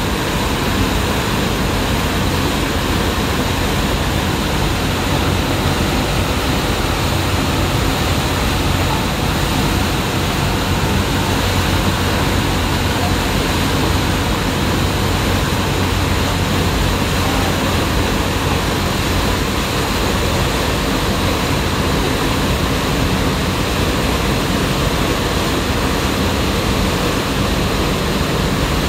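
Ferry's engines droning steadily under the loud rush of its churning propeller wake, heard from the stern while under way.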